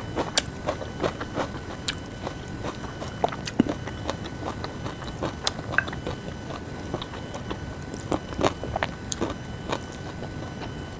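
A person chewing and biting food, with many irregular crisp clicks.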